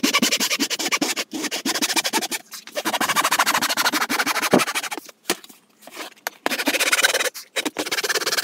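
Handsaw cutting through thin plywood along a curve: runs of rasping saw strokes with short pauses between them.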